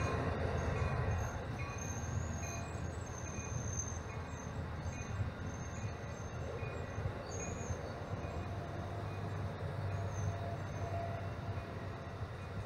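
Amtrak Amfleet passenger coaches rolling slowly past, their wheels and trucks making a steady low rumble on the rails. Short, faint high-pitched squeals come and go throughout.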